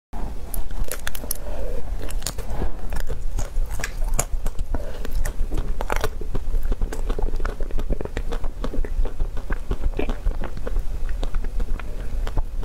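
Biting and chewing a chocolate-coated ice cream bar studded with chopped nuts: the hard chocolate shell cracks and crunches in many sharp crackles.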